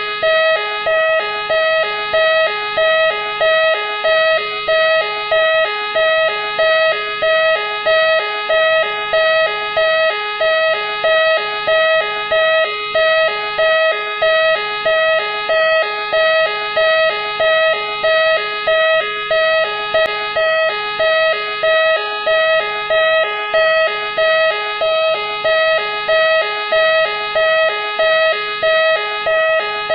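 Machine X police car siren sounding continuously: a loud electronic tone pattern that repeats evenly about every second and a quarter.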